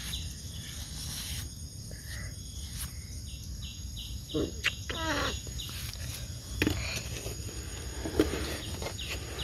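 Outdoor background with an insect chirping in a regular series, about three chirps a second, through the first few seconds. A short vocal exclamation comes about halfway through.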